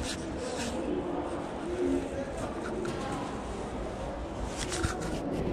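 Open-air street market ambience: a steady murmur of indistinct voices, with a few short clicks and knocks.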